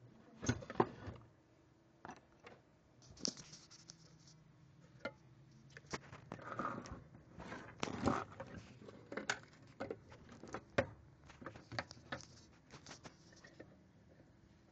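Irregular clicks, knocks and light rattles of handling, spread unevenly, with a louder cluster about half a second in and another around eight seconds.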